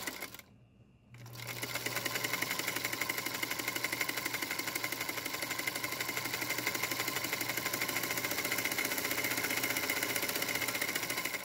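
Singer Featherweight sewing machine with a Singer buttonholer attachment running at a steady speed, stitching a buttonhole with a rapid, even clatter of needle strokes. It stops briefly at the very start and starts up again about a second in, then runs steadily until it stops right at the end.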